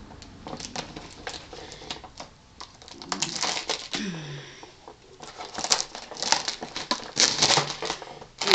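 Packing tape being cut and peeled off a cardboard packing insert: irregular crackling rasps and clicks, with louder runs about three seconds in and again from about six to eight seconds, and the cardboard rustling as it is handled.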